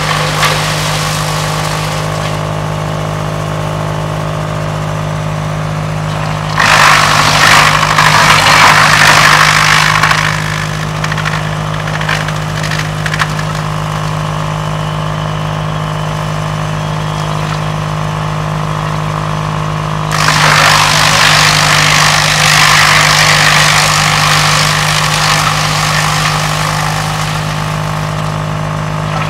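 Tractor-driven Pöttinger wood chipper running steadily, with two spells of loud chipping as branches are fed in: one about seven seconds in lasting some four seconds, the other from about twenty seconds in lasting some eight seconds.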